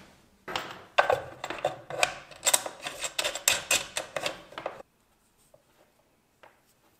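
Hands handling a plastic 936B soldering station and its iron: a string of clicks, taps and rattles from the case, cable and the iron's connector. The handling stops just under five seconds in.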